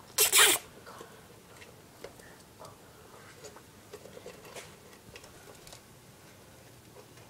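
Gerbils scrabbling about, their small claws making faint, scattered ticks and scratches on plastic, after a short loud rustle near the start.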